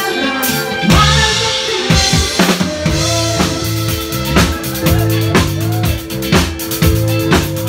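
Live band playing amplified dance-pop: the drum kit keeps a steady beat of about two hits a second, with kick and snare, over a pulsing bass line and a held chord.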